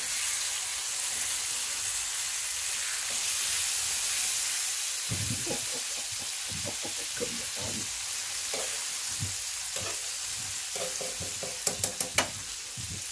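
Pork chops sizzling steadily in a hot cast-iron skillet on a wood-burner top. From about five seconds in there are soft knocks as metal tongs turn the chops, and near the end four quick sharp metallic clicks of the tongs.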